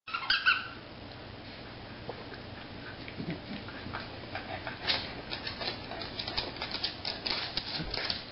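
Corgi chewing and mouthing a toy giraffe while rolling on its back, with scattered snuffles and mouth clicks that grow busier in the second half. A short high squeak comes just after the start.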